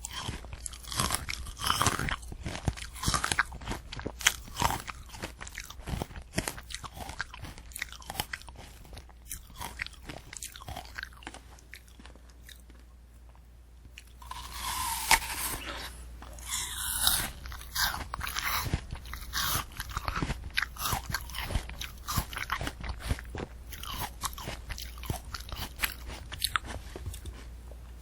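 Close-miked chewing of a candy apple: the hard red sugar shell and crisp apple flesh crunching and crackling between the teeth. The crunching dies down for a couple of seconds about halfway through, then picks up louder with fresh bites.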